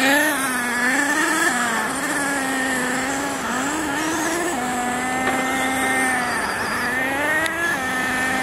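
Several radio-controlled model cars racing, their small engines buzzing and revving up and down as they take the corners and straights, one engine holding a steady high pitch for a second or so about halfway through.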